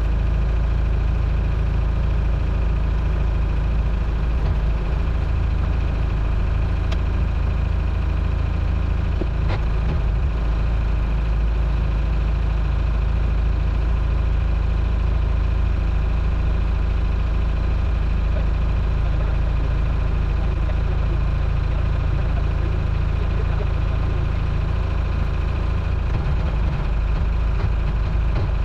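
Towboat's engine idling steadily at low speed, an unchanging low drone.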